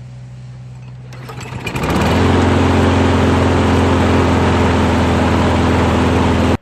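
Briggs & Stratton 6.75 hp lawn mower engine running. About a second in it speeds up and gets louder, then holds steady at full speed, running properly now that its stuck automatic choke flap has been freed.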